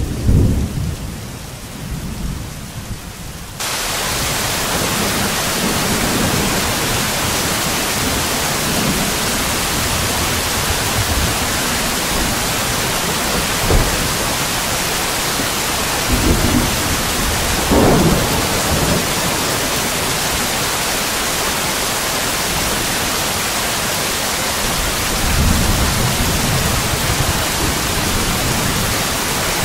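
Thunderstorm: a loud roll of thunder right at the start over light rain, then a steady, heavier rain hiss that comes in suddenly about four seconds in. Further low rolls of thunder come near the middle and again near the end.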